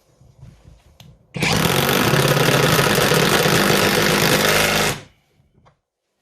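Kimo 20V cordless impact driver on its high speed setting driving a wood screw into a pre-drilled hole, its rapid hammering starting about a second and a half in and cutting off abruptly about three and a half seconds later.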